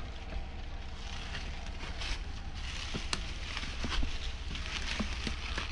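Mountain bike riding down a dirt trail: a steady rush of tyre and wind noise with a low rumble on the microphone, broken by scattered sharp clicks and knocks of the bike rattling over bumps, the sharpest about three seconds in.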